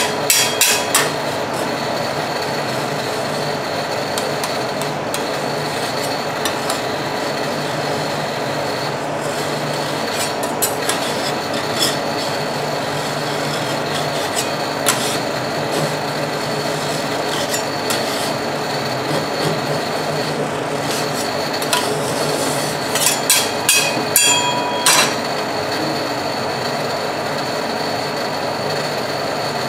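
Steel spatula scraping and rasping across a frozen ice-cream cold plate as a thin sheet of frozen strawberry yogurt is pushed up into rolls, over a steady hum. Sharp metal clicks and taps of the spatula on the plate come about a second in and again in a short cluster about two-thirds through.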